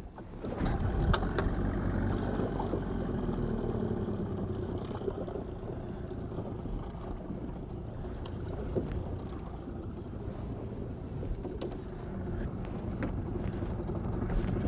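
Boat's outboard motor running steadily at low speed, with a few light clicks over it.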